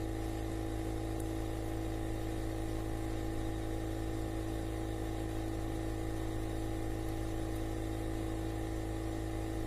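ATI 2i aerosol photometer's internal sampling pump running with a steady hum made up of several even tones.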